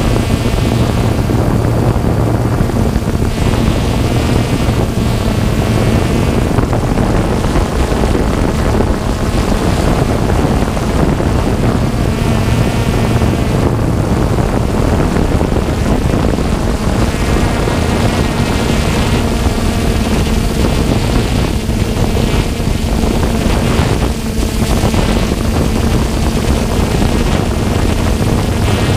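Small quadcopter drone's propellers and motors running, a loud steady buzzing hum heard from the drone itself, its pitch shifting slightly now and then as it flies.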